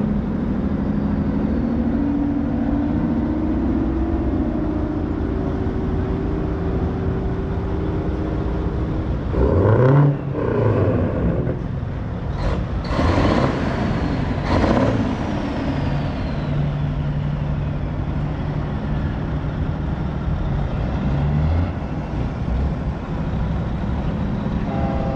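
Big-rig diesel truck engines running, with three louder swells about ten, thirteen and fifteen seconds in.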